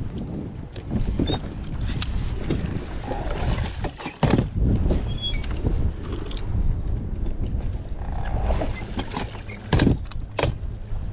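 Wind buffeting the microphone and small waves slapping the hull of a bass boat on a choppy lake, with a few sharp knocks about four seconds in and again near the end.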